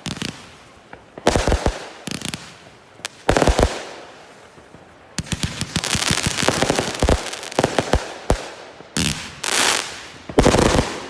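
200-shot firework cake firing: sharp bangs in quick clusters, a dense run of crackling from about five to eight seconds in, and a heavy final burst near the end.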